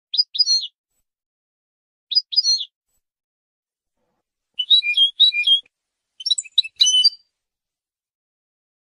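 European goldfinch singing in short bursts of rapid twittering notes: four phrases with silent gaps between them, the last two longer and denser. It is a recorded competition-style song tape of the kind played to train caged goldfinches.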